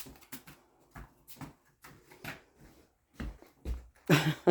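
Scattered light clicks and shuffles, then a dog barking, loud and short, a couple of times near the end.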